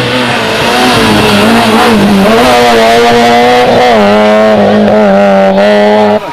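Rally car engine running hard at high revs, its pitch held fairly steady with brief dips about two and four seconds in. It cuts off suddenly near the end.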